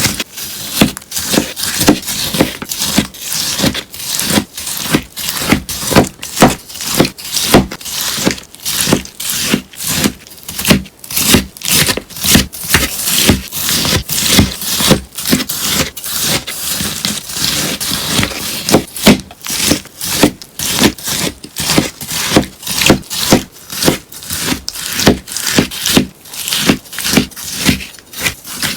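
Melamine sponge being cut in quick repeated strokes, each one a short crisp crunching scrape, about two to three a second.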